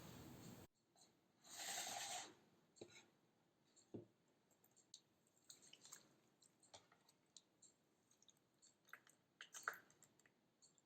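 Near silence with faint scattered clicks, a steady hiss that cuts off abruptly near the start, and a brief burst of noise about one and a half seconds in.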